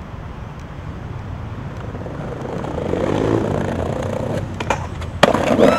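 Skateboard rolling over paving stones against a steady rumble of city traffic, the rumble swelling about halfway through. Near the end come a few sharp clacks, the loudest just after five seconds, as the board hits.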